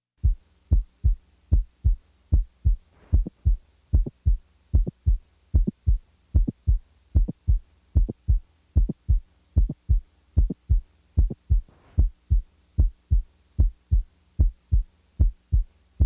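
Heart sounds heard through a stethoscope: a regular lub-dub of the first and second heart sounds over a faint steady hum. A high-pitched mid-systolic non-ejection click is added between them for a stretch and then taken away again; this click is most commonly caused by mitral valve prolapse.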